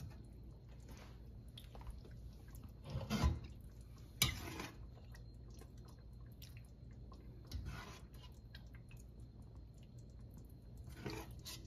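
Chicken pieces being lifted with a spoon out of simmering curry: a few scattered wet scooping and dripping sounds, with one sharper knock of the spoon on the pot about four seconds in, over a steady low hum.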